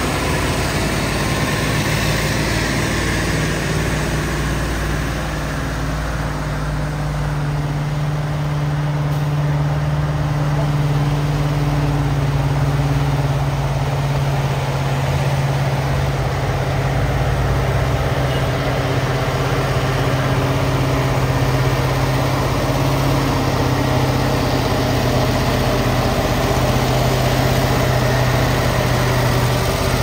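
Heavy truck's diesel engine running with a steady low drone that holds one pitch.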